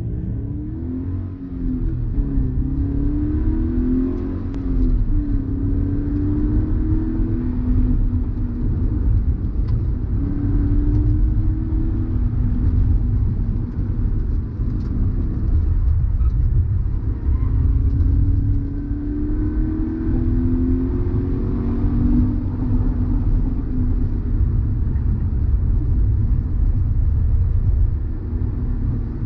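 Toyota GT86's 2.0-litre flat-four boxer engine heard from inside the cabin during hard track driving, rising in pitch several times as it accelerates and dropping back in between, over a loud, steady rumble of road and wind noise.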